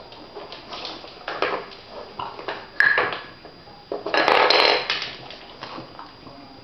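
Wooden dog puzzle board and its plastic pegs knocking and clattering on a hard floor as French bulldogs nose at it, with a sharp knock about three seconds in and a louder burst of rattling just after four seconds.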